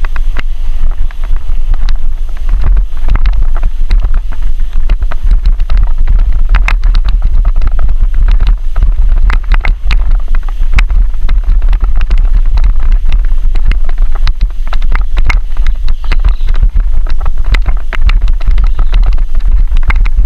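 Heavy wind buffeting on a bike-mounted action camera's microphone while a mountain bike rides along a dirt road, with frequent sharp knocks and rattles as the bike jolts over the rough surface.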